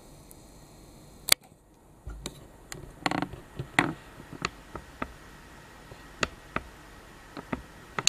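Handling noise: a single sharp click about a second in, then irregular light clicks and knocks, with no vacuum motor running.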